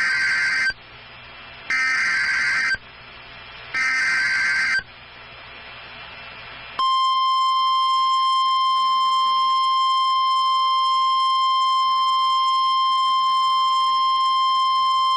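NOAA Weather Radio emergency alert signalling: the end of one SAME header data burst, then two more short buzzy digital data bursts about two seconds apart, and about two seconds later the steady 1050 Hz weather-radio warning alarm tone. Together they mark the start of a broadcast Severe Thunderstorm Warning.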